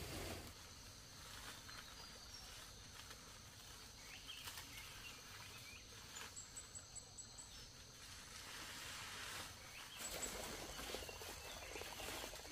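Faint rural outdoor ambience with a steady high insect drone, a brief run of about six quick high chirps midway, and a few light knocks.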